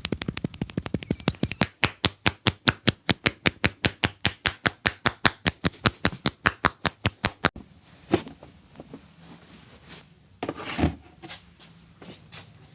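Percussive hand massage: a barber's hands chopping and slapping on a client in quick, even strikes, about six a second, heavier at first, stopping abruptly about seven and a half seconds in. Softer rubbing sounds and a single thump follow.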